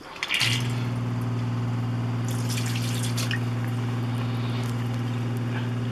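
An RV's 12-volt fresh-water pump kicks on about half a second in as the sink faucet is opened and then runs with a steady hum. Tap water runs and splashes into a stainless steel sink as bleach-sanitizing solution is pushed through the lines.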